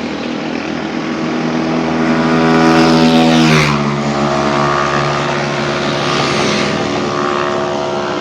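A jeepney's diesel engine droning as it drives past, growing louder as it approaches; its pitch drops quickly about three and a half seconds in as it goes by, then it runs on lower and fading.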